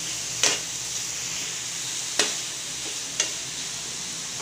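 Flaked milkfish and vegetables sizzling in a frying pan while a metal spatula stirs them, knocking sharply against the pan three times.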